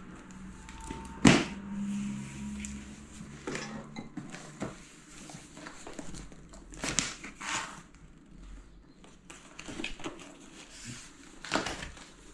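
Handling of unpacked packaging: scattered rustles and knocks, with one sharp knock about a second in.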